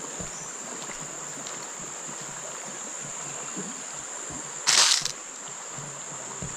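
Steady high-pitched drone of crickets or cicadas over the rush of a forest river. About five seconds in comes a brief, loud burst of noise.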